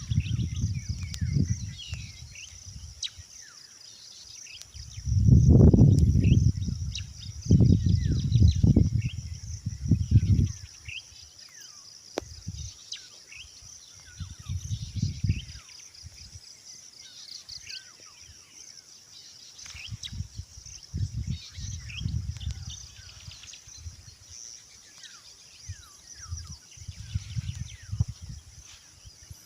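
Insects shrilling steadily in a high, even band, with scattered short bird chirps over it. Loud low rumbles come and go in bursts, the strongest from about five to ten seconds in.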